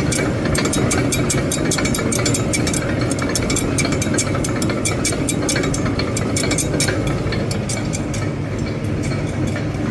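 Palmia 255 coarse grinder running steadily, with rapid crackling and clicking over the motor's hum as it grinds; the clicking thins out about eight seconds in.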